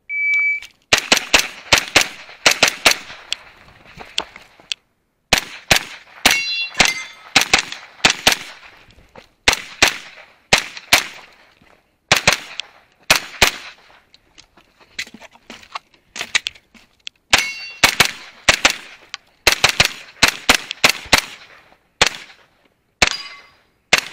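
Shot-timer start beep, then a pistol-calibre carbine firing a full stage: fast strings of shots with short breaks as the shooter moves between positions. After several of the shots a hit steel target rings.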